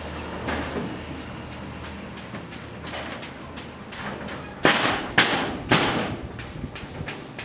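Three loud, sharp knocks about half a second apart, a little past halfway, each with a brief ring after it, among scattered lighter knocks.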